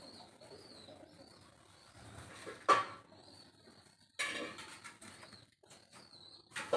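Birds calling softly, with one sharp loud knock about two and a half seconds in and a short clattering noise a little after four seconds; more sharp clicks near the end.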